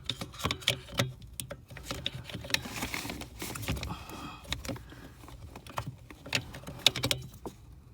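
Irregular small clicks and rattles of hands handling a car part and its wiring harness.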